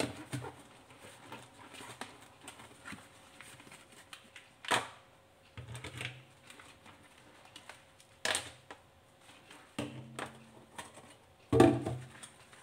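Dishwashing in a stainless steel sink: a soapy sponge rubbing on plastic containers and spice jars, with scattered clacks and knocks as they are handled and set down in the basin. Three louder knocks, about five seconds in, about eight seconds in and near the end, the last one the loudest.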